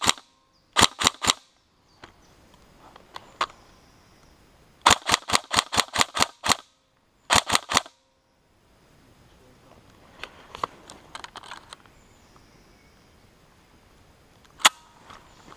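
Airsoft gun firing strings of rapid shots, about six a second, in three bursts, the longest about ten shots. Fainter scattered clicks follow, then one sharp crack near the end.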